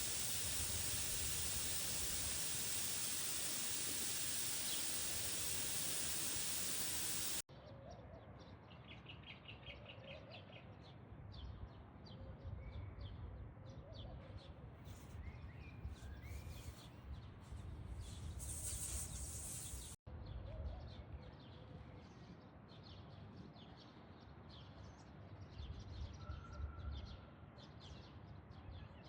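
A loud, steady rushing hiss for about the first seven seconds, which cuts off abruptly. After it, small birds chirp and call on and off against a quiet background, with a brief silent break about twenty seconds in.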